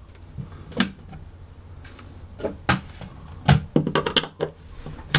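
Scattered clicks and light knocks of hand work on a wall panel, as a screwdriver is turned in the panel's screws; the sharpest knocks come about two and a half and three and a half seconds in, with a quick cluster of small clicks just after.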